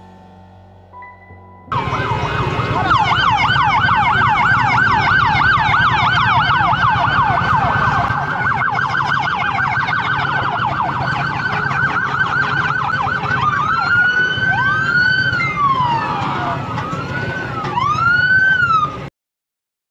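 Police siren on a sheriff's vehicle, starting suddenly in a fast yelping warble, then switching to slower rising and falling wails near the end before cutting off abruptly. A low engine rumble runs underneath.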